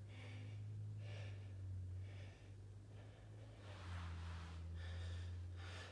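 A man breathing hard in short puffs, about one breath a second, from the effort of doing push-ups, over a steady low hum.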